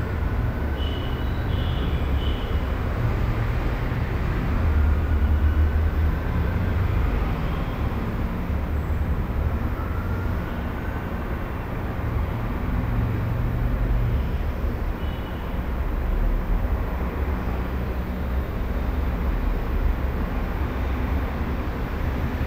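Residential room tone: a steady low rumble with a hiss, slowly swelling and easing, with faint short high tones about a second in and again around fifteen seconds in.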